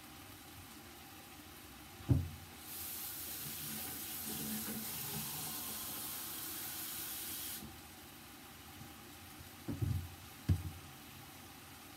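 A knock, then a steady hiss for about five seconds that starts and stops abruptly, then two more knocks near the end.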